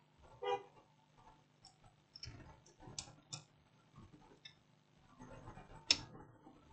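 Faint, scattered clicks and taps of a circuit board and small components being handled on a silicone work mat, the sharpest click near the end.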